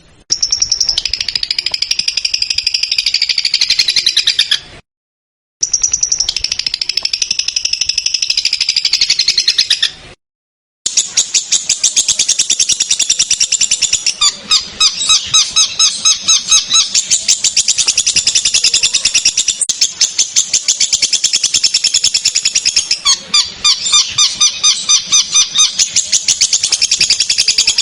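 Recorded songbird song for training caged birds, with sharp, rough rapid-fire phrases. It is cut twice in the first ten seconds by brief dead-silent gaps. From about eleven seconds on comes a long run of fast, evenly repeated high chattering notes, with lower note runs mixed in twice.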